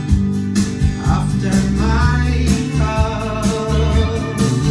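A recorded song playing through a hi-fi: Focal 1038 Be floor-standing loudspeakers driven by McIntosh MC452 power amplifiers.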